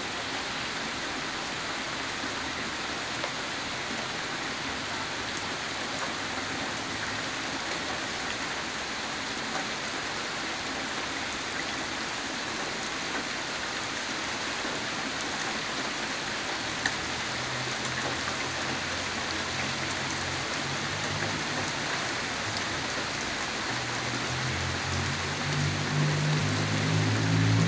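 Steady rain falling on a gravel road and grass, an even hiss with scattered drop ticks. A low rumble swells in over the last few seconds.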